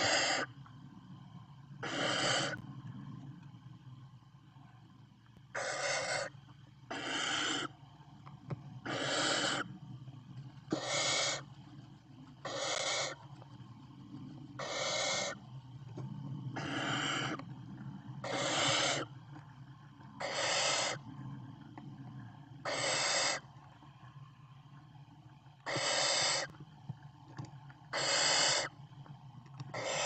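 Barn owl chicks giving their rasping, hissing 'snoring' calls, the nestlings' food-begging call. One call every two seconds or so, each under a second long.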